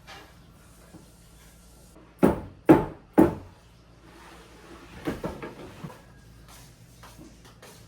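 Three loud knocks about half a second apart, followed a couple of seconds later by a few lighter knocks and clatter.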